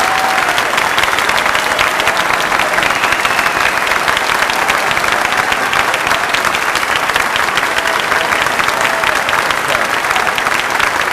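An audience applauding steadily, many hands clapping at once in a dense, unbroken clatter.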